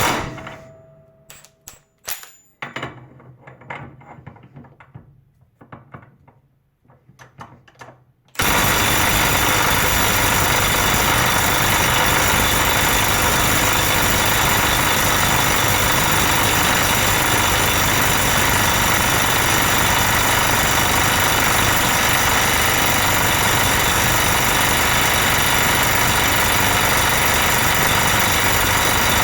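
12V Milwaukee Stubby impact wrench hammering continuously on a bolt during a sustained run to provoke its over-temperature protection. It stops right at the start, a few clicks and handling knocks follow for about eight seconds, then it starts hammering again abruptly and keeps going steadily.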